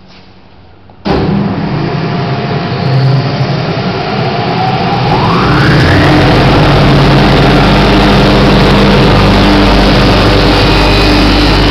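Laska Nano Cut FZ 225 micro cutter with a 132 kW motor starting up about a second in: a sudden loud onset, a whine rising in pitch over the next few seconds as it runs up to speed, then running steadily and loudly while it fine-cuts sausage meat batter.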